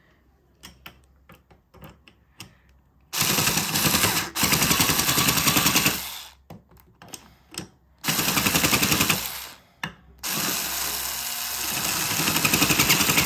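Small 3.6-watt Aprilla cordless screwdriver running in three bursts of a rapid rattling buzz, the last and longest starting about ten seconds in. Its bit is in a chair screw and it is turning in the tightening direction instead of reverse.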